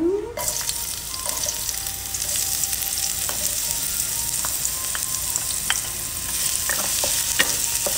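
Diced red onion dropped into hot oil in a hammered carbon-steel wok: a sudden loud sizzle about half a second in that carries on steadily as the onion fries, with a few light clicks.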